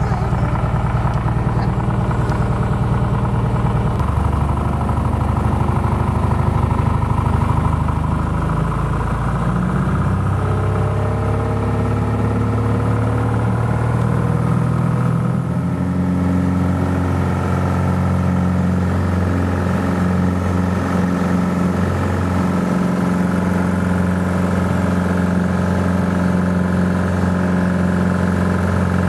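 Single-engine propeller plane's engine and propeller at takeoff power, heard from inside the cabin during the takeoff roll and climb-out. The engine note is loud and steady, stepping up in pitch a few times in the first half.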